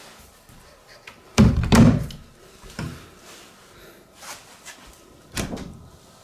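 Wooden closet door being handled and knocking in its frame: two loud bangs in quick succession about a second and a half in, then lighter knocks near three seconds and again after five seconds.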